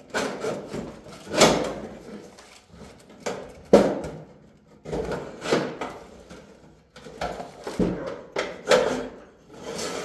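Metal pry bar scraping and levering against the sheet-metal casing and coil frame of an air conditioner, a string of irregular scrapes and rattles with two sharper knocks.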